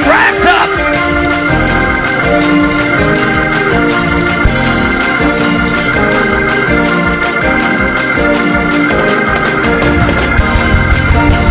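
Gospel organ playing held, shifting chords in a church praise break, with a pulsing low beat coming in near the end.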